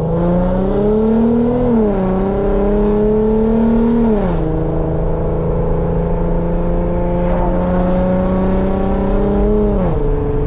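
Infiniti Q50's VQ V6 accelerating through the gears with a loud exhaust: the engine note climbs, drops sharply at upshifts about two and four seconds in, then holds a steady, slowly rising cruise before dropping again near the end.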